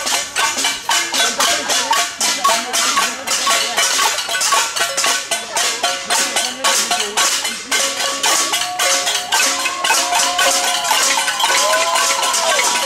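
Music: fast, dense percussion with a melody line over it.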